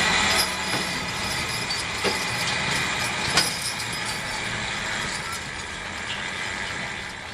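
Dynamometer truck's engine and hydraulic pump running steadily under load as a draft-horse team pulls the truck, the pump holding the truck back to keep tension on the pull. A couple of sharp clicks come through, and the sound gradually fades toward the end.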